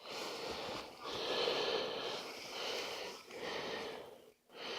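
A person breathing close to the microphone, a steady run of in- and out-breaths about a second each, with a faint wheezy edge.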